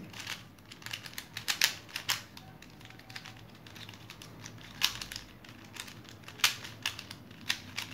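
A shape-shifting 3x3 twisty puzzle cube being turned by hand as it is scrambled: a run of quick, irregular plastic clicks and clacks from its layers, a few of them sharper and louder.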